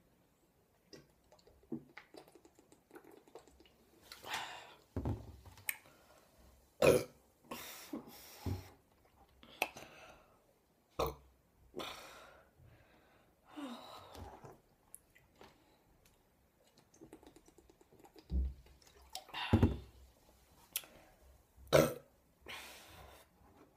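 A woman burping over and over, about a dozen separate burps, some short and some drawn out, with a lull of a few seconds past the middle. The burps are brought up by a large amount of carbonated cola drunk quickly.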